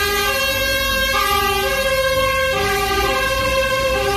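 Fire engine's two-tone siren sounding, switching back and forth between a low and a high note about every two-thirds of a second, over a low rumble.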